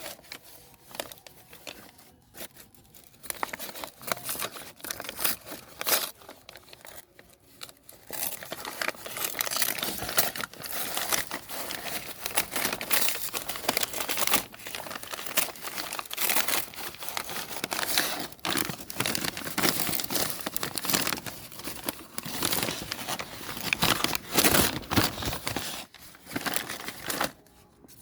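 Packaging being handled and opened: crinkling and rustling with some tearing. It is sparse and intermittent at first and becomes continuous about a third of the way in.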